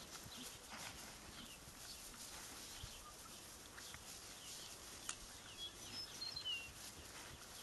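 Faint open-field ambience, an even low hiss, with a few short high bird chirps near the end.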